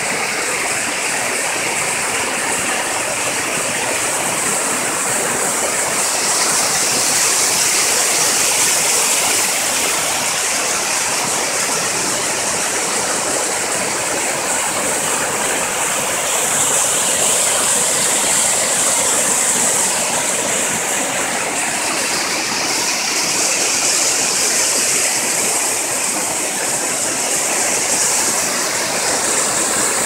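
Waterfall: white water rushing and splashing down a smooth rock slab in a steady, loud rush, its hiss swelling a few times.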